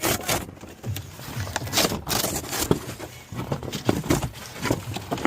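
A gift package being opened by hand: irregular rustling, scraping and crackling of the wrapping and box as it is torn and pulled apart.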